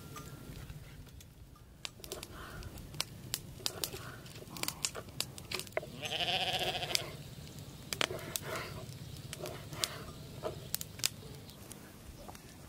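A sheep gives one loud bleat of about a second, about six seconds in, with fainter bleats before and after. Throughout there are sharp taps of a kitchen knife cutting raw lamb offal on a wooden board.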